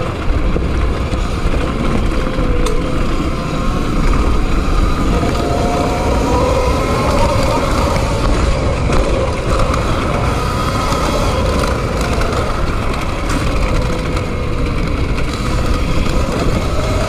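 Electric motor of an E-Ride Pro SS e-bike whining while riding a trail, its pitch rising and falling with speed, over steady tyre and wind rumble.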